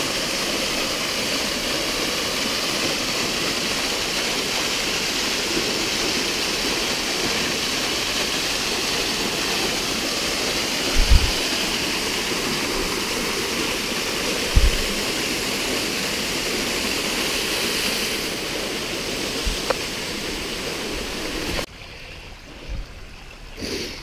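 Small waterfall, a thin fall of water, splashing steadily into its plunge pool, with two brief dull thumps about 11 and 14.5 seconds in. Near the end the water sound drops suddenly to a much quieter trickle.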